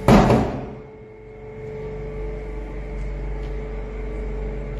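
Bathroom door banging shut with one loud bang right at the start that dies away within about a second. A steady hum with a faint held tone follows.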